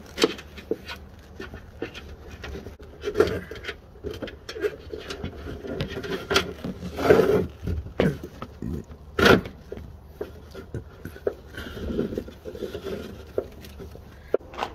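Gloved hands handling a wiring harness against a car's tailgate frame and trim: irregular rustling, scraping and small clicks, with a louder scrape about seven seconds in and a sharp click about nine seconds in.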